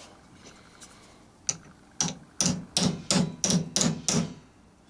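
A small hammer tapping a metal sleeve to drive a flywheel down onto the shaft of a Hornby model-train motor. There is one light tap, then about seven evenly spaced taps, roughly three a second.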